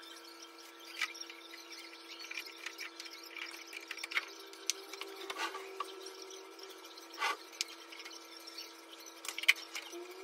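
Scattered light knocks, clicks and rubbing of small household objects being handled and set down during tidying, over a steady low electrical hum.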